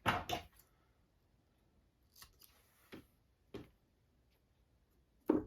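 A few sparse, short clicks and crinkles of hands working double-sided tape onto a leather piece.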